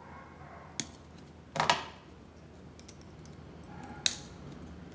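Small metal clicks from a pocket multitool pliers being handled and its folding tools pried open: one just under a second in, two close together a little later, and another about four seconds in.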